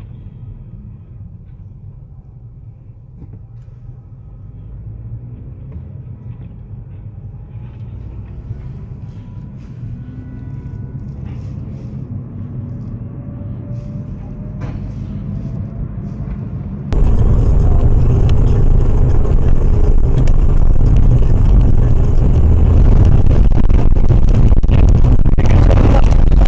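Road noise inside a moving car on a highway: a low rumble that slowly grows louder, with faint rising tones. About 17 seconds in it gives way abruptly to much louder road noise.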